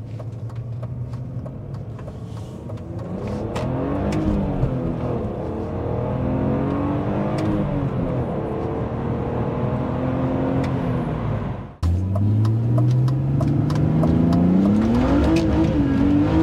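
BMW E46 330Ci's straight-six accelerating hard, heard from inside the cabin on the stock exhaust with new OE catalytic converters, its revs rising and falling a few times. About twelve seconds in, the sound cuts to the same car running headers and race cats, its engine note climbing steadily as it pulls.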